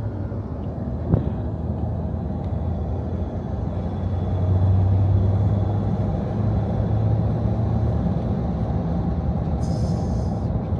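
A vehicle's engine running steadily, a low hum that swells a little in the middle, with a sharp click about a second in.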